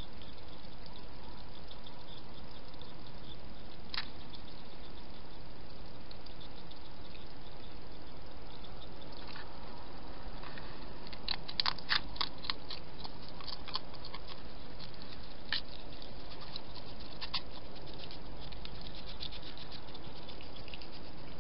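A hedgehog eating and shuffling at its food dish: scattered small clicks and crackles, with a dense run of them about halfway through, over a steady hiss of camera microphone noise.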